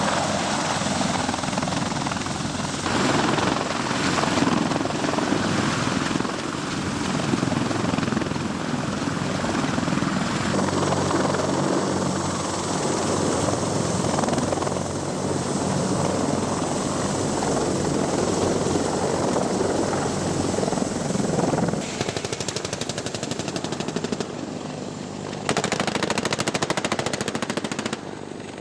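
Helicopter running steadily, with rotor and engine noise, for most of the clip. In the last several seconds this gives way to long strings of rapid automatic gunfire, in two stretches.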